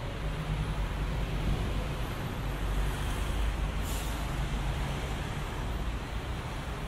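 City street traffic: a steady low rumble of passing cars and buses, with a brief high hiss about three to four seconds in.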